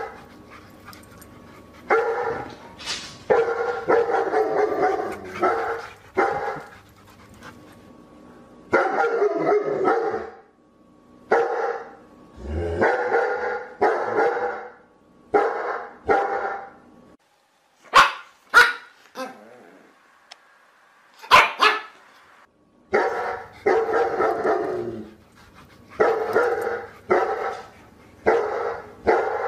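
Dog barking repeatedly, in single barks and short runs. About two-thirds through there is a pause of a few seconds, broken only by a few sharp clicks.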